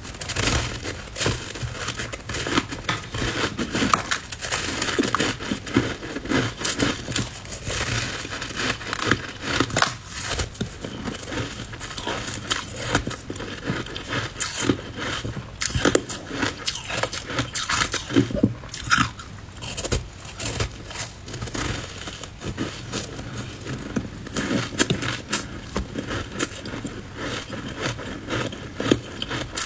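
Ice pieces coated in matcha powder being bitten and chewed: a steady run of crunching and crackling as the ice breaks between the teeth.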